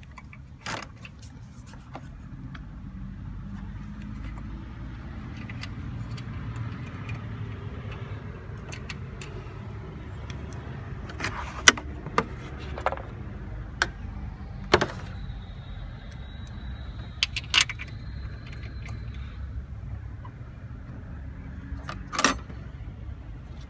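A car engine running with a steady low hum, with scattered sharp clicks and knocks and a thin high whine for a few seconds around the middle.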